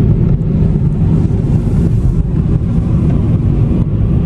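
Steady low rumble of a car driving, heard from inside the cabin: engine and tyre noise on a snowy winter road.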